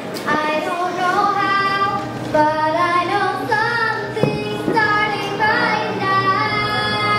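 Young voices singing a musical-theatre song with music behind them, holding notes and sliding between pitches.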